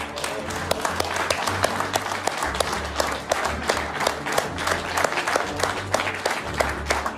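A large audience applauding, many hands clapping densely and steadily.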